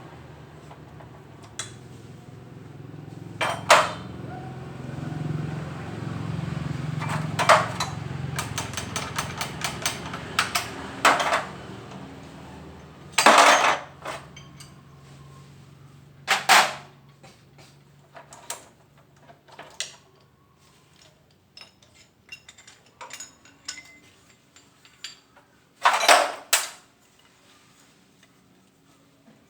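Metal clanks and knocks of tools and parts being handled during transmission disassembly: scattered sharp strikes, with a quick run of rapid clicks about eight seconds in. A low machine hum fades out during the first dozen seconds.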